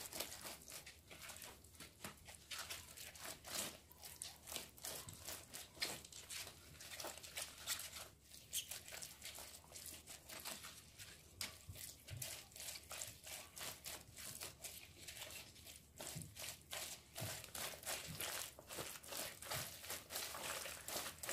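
Gloved hands working red chili seasoning paste into salted napa cabbage leaves in a plastic bowl for kimchi: an irregular run of soft crinkling, rustling and wet smearing noises.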